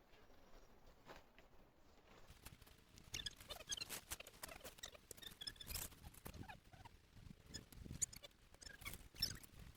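Faint, irregular rustling and small clicks of a tent being set up: fabric being handled and poles and pegs knocking.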